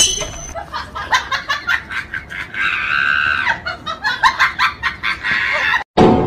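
A rapid run of short animal-like calls with one longer drawn-out call about three seconds in, stopping abruptly near the end.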